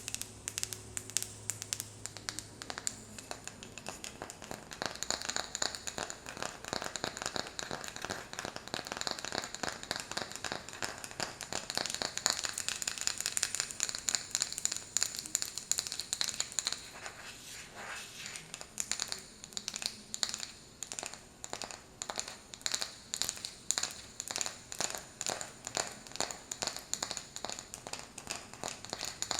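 Rapid tapping on a wooden lid. There is a dense, fast stretch through the first half, then separate taps about two a second through the second half.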